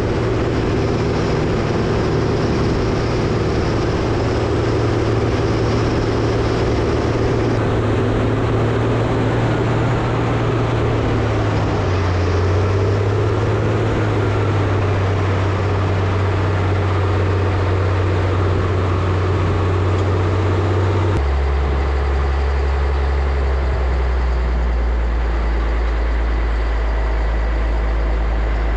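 Caterpillar 637C wheel tractor scraper diesel engines running steadily under load. The engine note steps down in pitch partway through, then drops suddenly to a deeper, lower tone about two-thirds of the way in.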